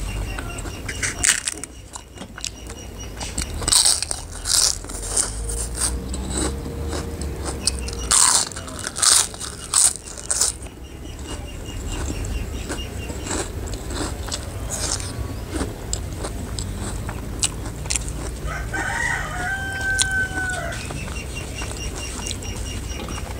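Crisp papad being bitten and crunched, a few sharp crackly bites in the first ten seconds. About nineteen seconds in, a rooster crows once for about two seconds.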